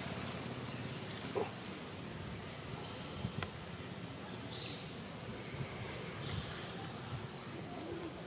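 Forest ambience: short high chirps, each rising in pitch, repeat every second or so over a faint hiss. A single sharp click comes about three and a half seconds in.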